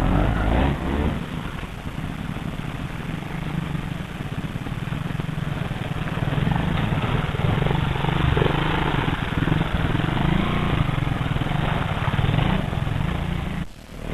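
Trials motorcycle engines running at low speed, the hum rising and falling as the bikes pick their way up a rocky stream bed; the sound dips briefly near the end.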